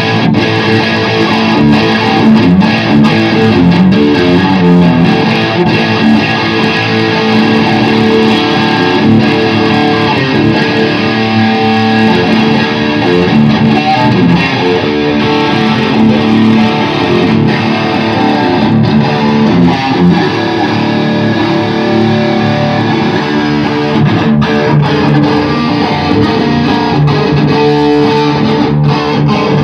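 Electric guitar played continuously through an Orange guitar amplifier, a steady stream of notes and strummed chords.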